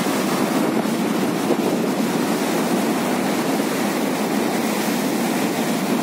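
Sea surf breaking and washing over a flat rock shore: a steady rushing noise that does not let up.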